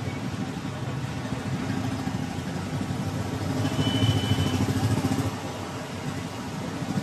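Dense city traffic in a jam: car and motorbike engines running together in a continuous rumble that swells around the middle, with a brief faint high tone about four seconds in.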